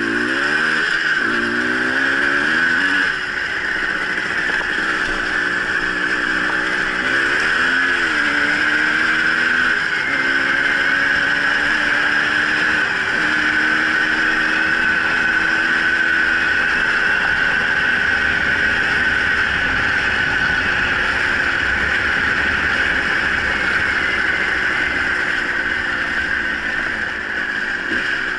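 Dirt bike engine pulling along a dirt track, its revs climbing and dropping through gear changes in the first ten seconds, then running at a steady cruise. A steady high hiss runs under it throughout.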